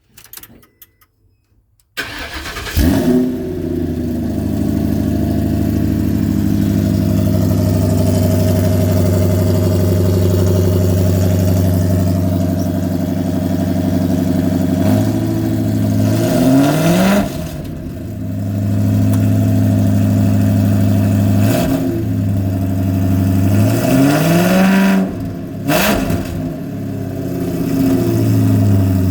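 Ford 4.6-litre two-valve V8 starting about two seconds in, briefly flaring and then settling into a steady idle. It is revved and let drop back to idle several times through the second half.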